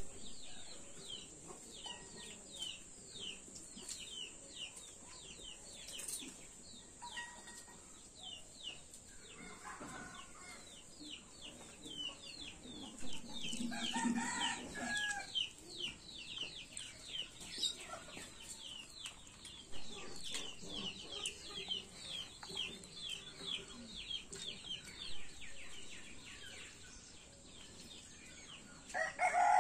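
Chickens calling: a continuous run of high, falling peeps, several a second, with louder calls about halfway through and a rooster beginning to crow right at the end.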